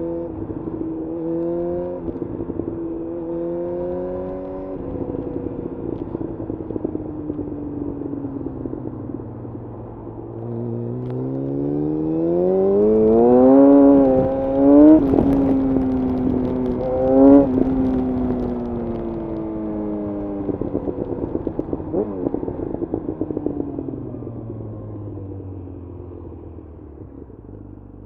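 Yamaha FZ1 inline-four motorcycle engine under way: engine speed eases off, then climbs steeply from about ten seconds in to a high pitch, with two sharp revving peaks, before falling steadily as the bike slows.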